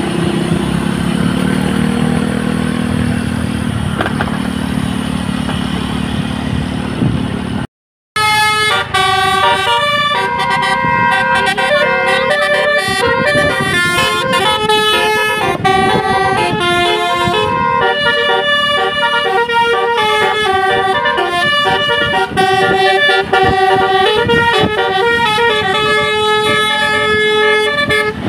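Vehicle engine and road noise for the first eight seconds or so. Then, after a sudden cut, a tour bus's telolet basuri musical horn plays a tune of held notes stepping up and down, several horn tones sounding together.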